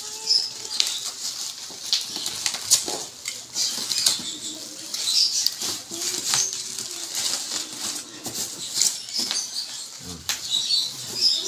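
Black plastic bag and bubble wrap crinkling and rustling as a wrapped gift is pulled open by hand, with many small irregular crackles.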